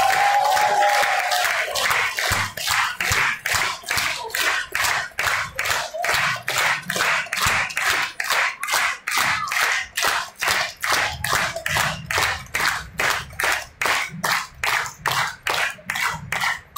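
Theatre audience applauding: a dense wash of applause that within about two seconds turns into rhythmic clapping in unison, about three claps a second. A few voices call out over it at the start.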